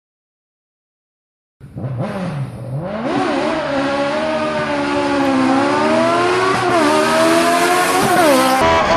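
Silence for about a second and a half, then a Formule Faster single-seater race car's engine coming up the hill at full throttle. The pitch climbs and drops back at each upshift, and the engine gets louder as the car nears and sweeps past.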